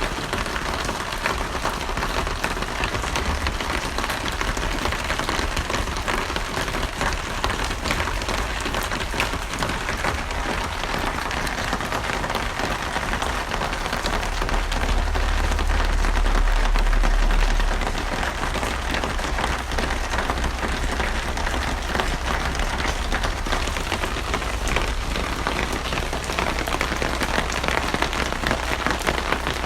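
Steady heavy rain falling on a surface, a dense even patter of drops. A low rumble swells briefly about halfway through.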